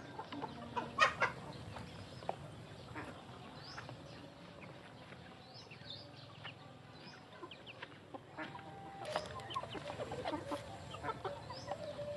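Flock of young chickens clucking and giving short high peeps while pecking at feed, with scattered light taps; a sharp tap about a second in is the loudest sound.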